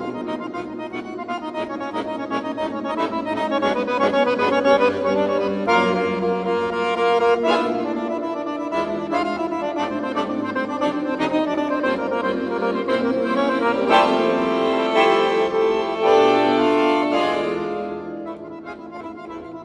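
Solo chromatic button accordion playing a melody over chords, quieter near the end.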